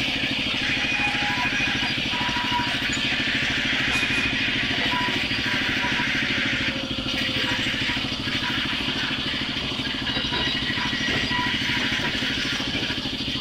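Sawmill band saw running steadily while a thick timber slab is pushed through it. Under the higher rushing noise of the saw there is a dense, fast low throb from the drive.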